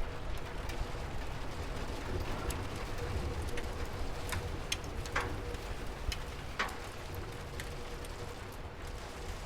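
Steady rain with a low rumble beneath and scattered individual drips, a handful of sharper drops standing out a little past the middle.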